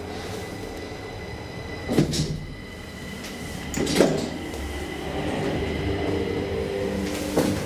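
DEVE hydraulic elevator running, with a steady hum from its drive that is weaker at first and comes back stronger about five seconds in. Three short clunks come during the ride, one of them as a car button is pressed.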